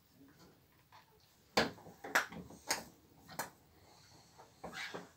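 Five sharp knocks, loosely spaced, starting about a second and a half in, with the loudest near the middle.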